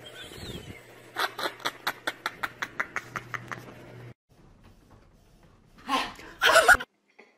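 Domestic cat chattering, the excited clicking a cat makes while watching prey through a window: a quick run of sharp clicks, about six a second, fading over two seconds, above a steady low hum. Near the end come two short loud bursts.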